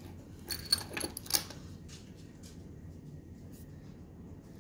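Metal keychain clicking and tapping against a wooden tabletop as it is handled and turned over: a few sharp clicks in the first second and a half, then a couple of faint ticks.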